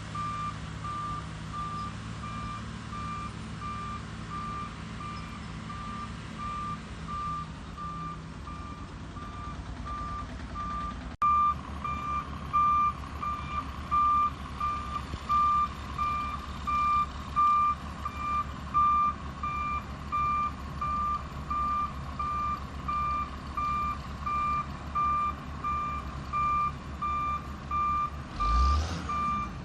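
Heavy construction machine's reversing alarm beeping steadily in an even rhythm over a low engine rumble. About a third of the way in, the beeping jumps suddenly louder and nearer.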